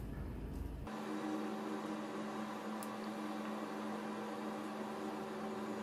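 Steady electrical hum with even hiss. It starts abruptly about a second in, replacing a lower rumble.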